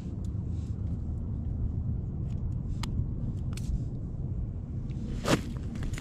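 Steady low rumble of wind buffeting the microphone, with scattered small clicks and ticks as a caught fish and line are handled on the ice, and a sharper louder knock about five seconds in.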